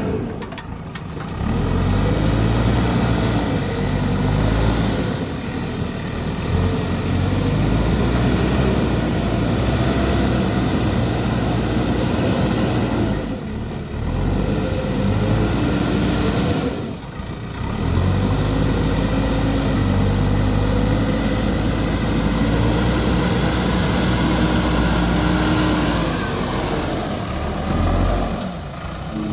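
JCB backhoe loader's diesel engine running under load, its pitch rising and falling again and again as the machine works, with a few brief drops in level.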